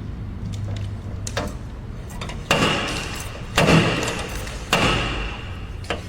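Body hammer striking sheet-metal car body panel, about one blow a second, each blow leaving a short metallic ring: dent work in panel beating.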